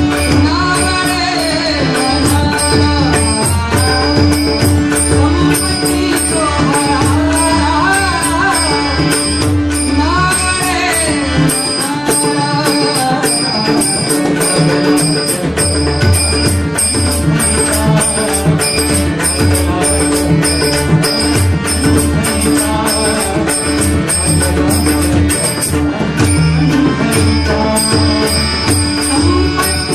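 Marathi abhang, a devotional song, sung by a male bhajan singer with accompaniment: a steady drone under the voice and a regular percussion beat. The low drum part drops out for a few seconds about halfway through.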